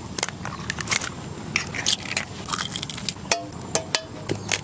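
Eggs being cracked open one after another over a pan: a quick, irregular run of sharp shell cracks and taps.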